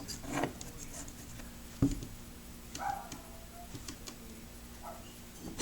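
Faint clicks and scrapes of the steel pipe fittings of a homemade pipe shotgun being handled and screwed together, with one sharper metallic click about two seconds in.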